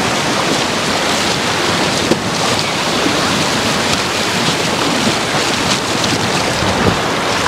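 Small sea waves breaking and washing in the shallows, a steady hiss of surf.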